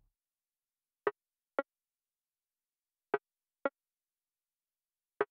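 Short, dry percussive clicks in pairs about half a second apart, the pairs coming about every two seconds, with silence between.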